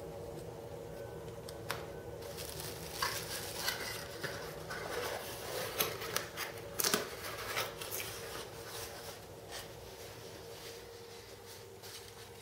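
Handling noise from unpacking circuit boards: rigid boards clicking against each other, bubble wrap crinkling and a cardboard box being moved, heard as irregular clicks and rustles, busiest in the middle, over a steady faint hum.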